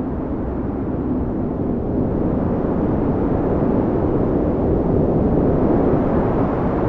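Wind buffeting a phone's microphone: a steady, low rush of noise with a fluttering rumble underneath.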